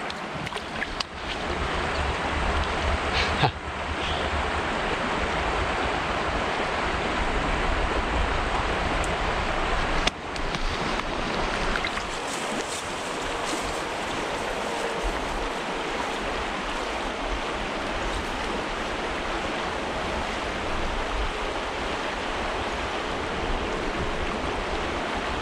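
Small creek running steadily over a shallow bed, a continuous rushing of water, with low wind rumble on the microphone. A brief knock sounds about three and a half seconds in.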